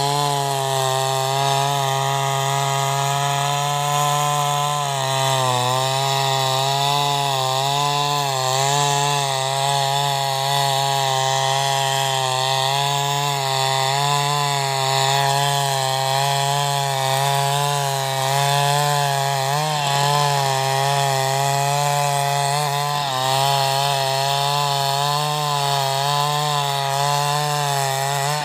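Petrol chainsaw running at high revs without a break while rip-cutting a log lengthwise along the grain. The engine pitch wavers slightly as the load changes.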